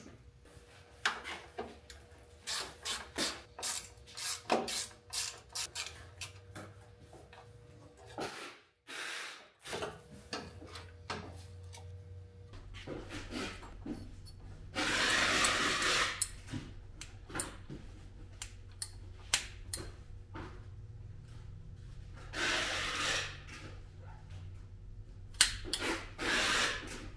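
Hand tools and metal parts being worked during front-end disassembly: a run of irregular clicks and knocks, then three longer rasping, scraping bursts about halfway, about two-thirds of the way and near the end, over a faint low hum.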